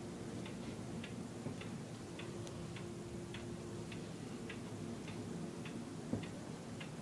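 Regular ticking, a little under two ticks a second, over a low steady hum, with one soft thump about six seconds in.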